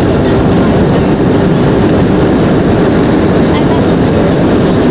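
Steady, loud cabin noise of an Airbus A320 in flight, heard from inside the cabin: engine and airflow noise, with a faint steady hum running under it.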